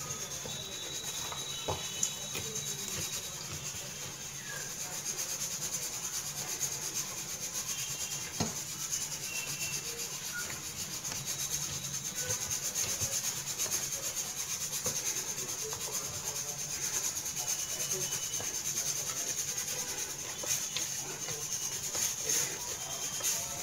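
Hands kneading stiff wheat-flour dough in a steel plate: a rubbing, pressing sound with a few sharp knocks against the metal, over a steady high hiss.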